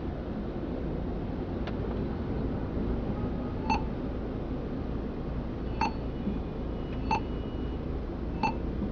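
Short electronic key beeps from an Android car head unit's touchscreen, four of them one to two seconds apart. A steady low rumble from inside the moving car runs under them.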